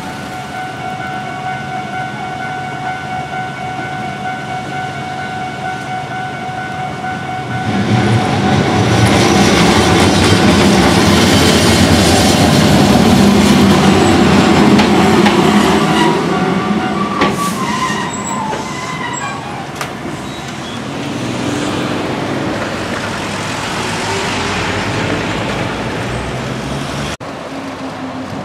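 Japanese level-crossing warning bell ringing its steady electronic clang, then a Hankai Tramway tram rolls over the crossing, its rumble and wheel noise swelling loudly about eight seconds in and fading after about eight seconds. A second, quieter rumble of passing traffic rises near the end.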